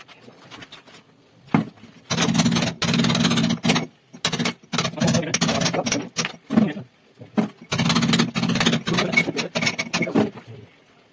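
A power tool working into the brick and plaster at the edge of the wall opening, in three bursts of two to three seconds each with short pauses between them.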